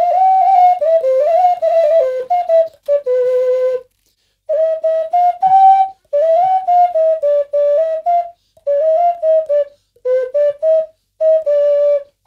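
Ocarina made from cow horn, played by hand, giving a melody of clear flute-like notes that step up and down. It comes in short phrases separated by brief gaps.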